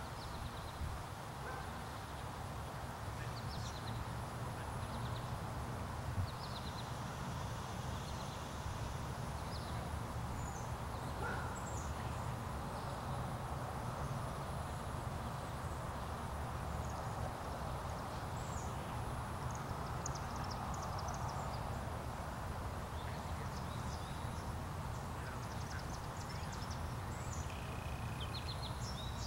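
Steady outdoor background of low rumble and hiss, with birds chirping now and then and a single sharp click about six seconds in.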